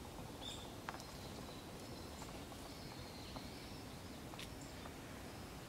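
Faint steady outdoor background noise with a few short, high bird chirps and a couple of soft clicks.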